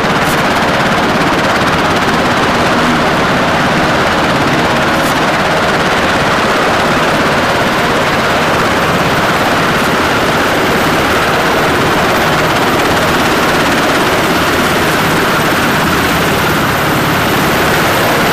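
MH-60 Seahawk helicopter hovering low over the flight deck: a loud, steady turbine and rotor noise with a rapid rotor beat.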